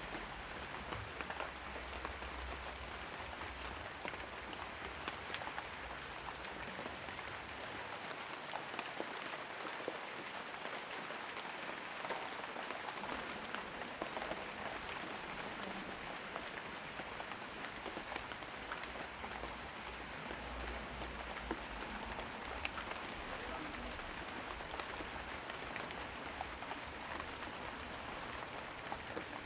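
Steady rain falling, an even hiss with the patter of individual drops ticking throughout.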